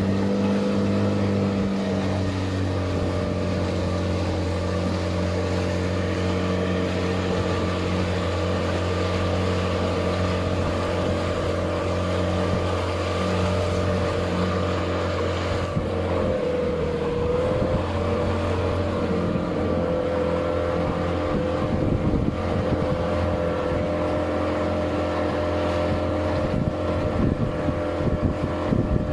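Motorboat engine running steadily underway, its pitch dipping briefly about halfway through and then recovering.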